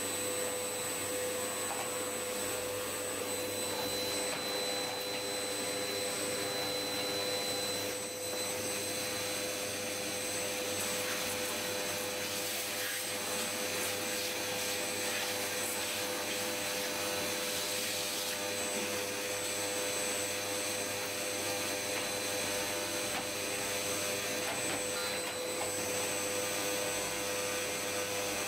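Vacuum cleaner running steadily, a constant motor whine over an even rushing noise, with a brief slight dip about eight seconds in.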